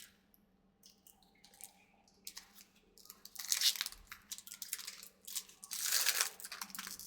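Foil wrapper of a Pokémon card booster pack crinkling and tearing as it is opened, in two stretches of rustling a couple of seconds apart.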